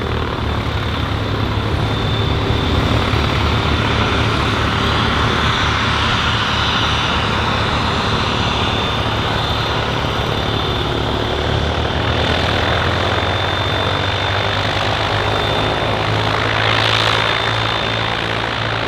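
Cessna Citation CJ2's twin turbofan jet engines running steadily: a constant high whine over a low rumble, swelling briefly near the end.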